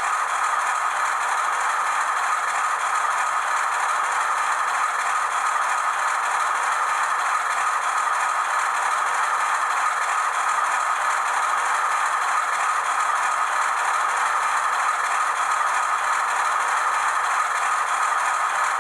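Auscision 442 class model diesel locomotive running with a goods train on a model railway, giving a steady, unbroken rattle as the train rolls along the track.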